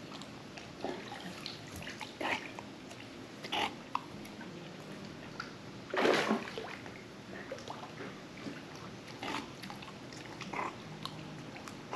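Short, scattered noises from a dog, the loudest about six seconds in.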